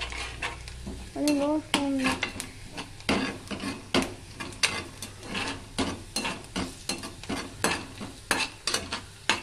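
A spatula stirring and scraping in a steel kadai of frying onions, with irregular metal clinks one or two a second over the sizzle of the oil.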